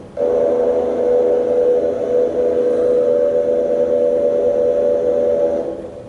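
Airboat engine and propeller running at a steady drone with a pitched hum, heard as video playback over a room's speakers. It cuts in just after a short break at the start and fades away near the end.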